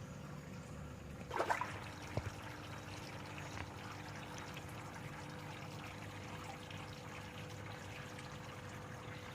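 Faint, steady trickle of water in a home aquaponic system, with a brief louder rustle about a second and a half in and a small click just after.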